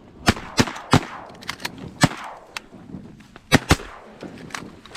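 A volley of shotgun fire at ducks from several hunters: about six loud shots spread over four seconds, the last two close together, with fainter shots between them, each shot trailing off briefly.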